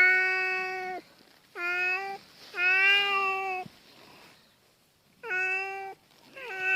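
Domestic cat's long, drawn-out threat yowls in a standoff with another cat, five in a row at a steady pitch, each lasting half a second to a second, with a pause of over a second midway.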